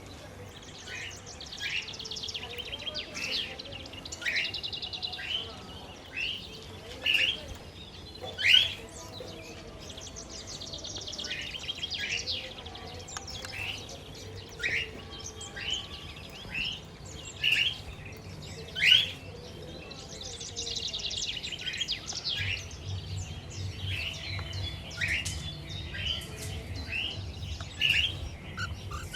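Pet budgerigars and a lutino cockatiel chirping: a fast, continuous chattering warble with loud, sharp chirps breaking in every second or two.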